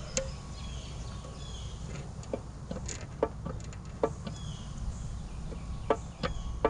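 Scattered small clicks and taps of pliers gripping and twisting a stuck rubber hose, over a steady low rumble, with birds chirping faintly a few times.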